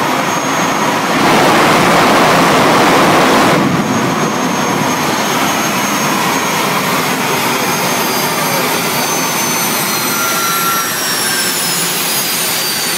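General Electric J79 turbojet of an F-4 Phantom, mounted on a jet truck, running loudly. About three and a half seconds in the sound changes abruptly to a steadier rush with a high whine that slowly falls in pitch.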